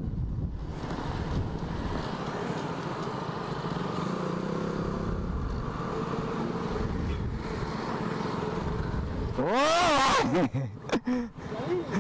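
Motorcycle running at highway speed with wind rushing over the helmet camera. About ten seconds in, a few sharp engine revs rise and fall in pitch, the first one loudest, as the bikes slow down.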